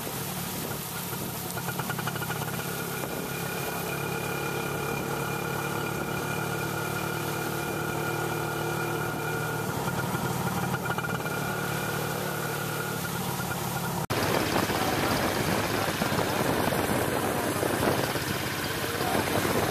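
Motorcycle engine running steadily while riding along a flooded road. About two-thirds of the way through, the sound cuts off sharply and gives way to a louder, even rushing noise of the ride.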